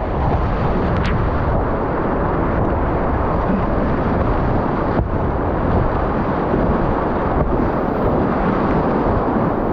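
Whitewater rapid rushing loudly and steadily around a kayak in the middle of the run, with spray splashing over the bow and onto the camera.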